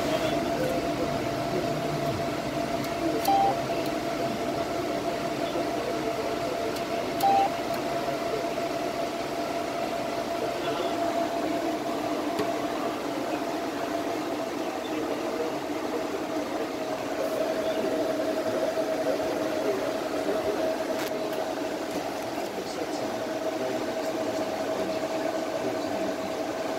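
Palomar StarLux 500 intense-pulsed-light system running: a steady machine hum with a constant whine, its pitch dropping slightly about halfway through. Two short electronic beeps sound, about three and seven seconds in.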